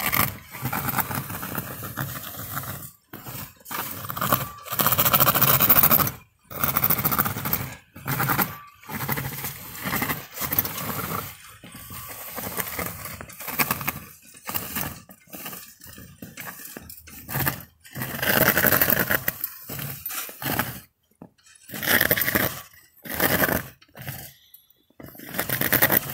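A remote-controlled snow plow's drive motors run in repeated short bursts, each a second or two long, stopping dead in between. The steel plow blade scrapes and pushes through snow as it goes.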